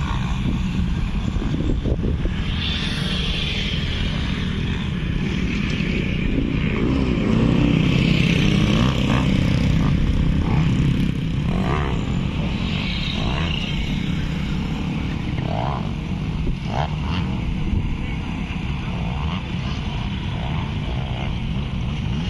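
Motocross dirt bike engines revving and running as the bikes ride the dirt track and its jumps. The engine sound swells, loudest about a third of the way in, then eases.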